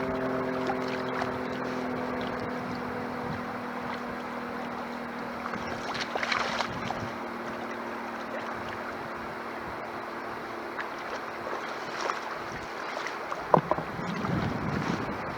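Wind on the microphone and shallow seawater washing at the shoreline, with a few light splashes and knocks later on. A few held tones fade out over the first few seconds.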